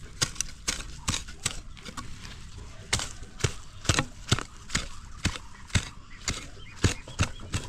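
Weeding in a flower bed: a steady run of short, sharp chops into the soil, about two or three a second, somewhat irregular.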